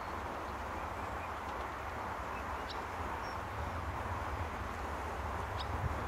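Steady outdoor background noise with a low rumble, with two short, high bird chirps, one about halfway through and one near the end.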